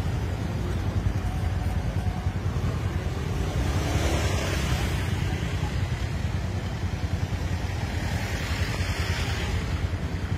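Low, steady rumble of a car idling at a stop, heard from inside the cabin, with passing traffic outside swelling twice, about four and eight seconds in.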